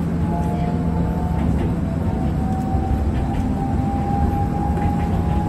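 Enoden electric train running, heard from aboard: a steady low rumble of wheels and running gear with a thin whine that slowly rises in pitch.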